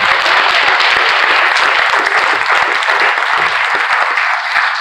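A church congregation applauding: many people clapping together in a steady, dense patter that eases slightly near the end.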